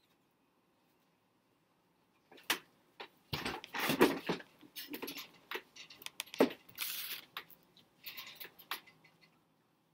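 Handling noise as the recording device is picked up and set down at a new angle: a string of uneven clicks, knocks and rustles of clothing and hands on the device, starting about two seconds in and stopping near the end, loudest about four seconds in.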